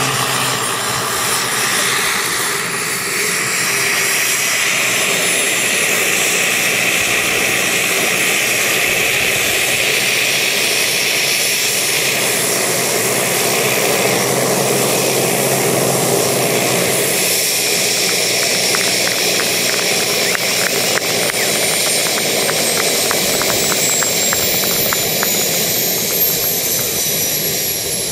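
Turbine-powered radio-controlled scale model Bell 412 helicopter flying low and setting down. A steady high turbine whine runs over the noise of the rotors, with a high tone falling in pitch over the last few seconds.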